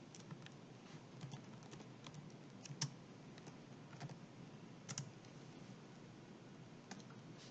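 Faint, irregular keystrokes on a computer keyboard, typing a short entry with a dozen or so scattered clicks.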